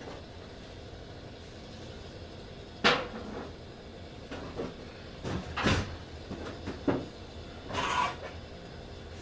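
A series of knocks and clunks from things being handled and set down, the loudest a sharp knock about three seconds in, with several smaller clicks after it and a short scraping rustle near the end.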